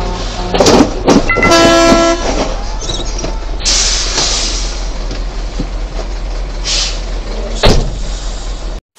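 Heavy semi-truck engine and tyres rumbling as the truck and its trailer pass very close. A horn sounds for about half a second around a second and a half in, and a burst of hissing comes about two seconds later.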